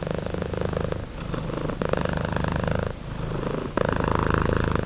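Domestic cat purring: a rapid, pulsing rumble that swells and eases with each breath, alternating between a louder and a softer phase about once a second.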